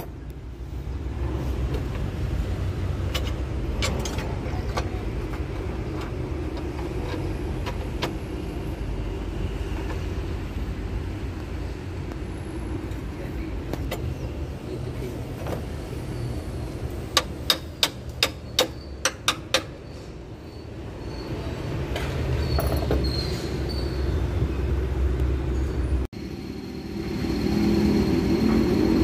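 Heavy truck engine running with a steady low rumble. About seventeen seconds in comes a quick run of about eight sharp clicks, and after a sudden cut near the end the engine rumble is louder.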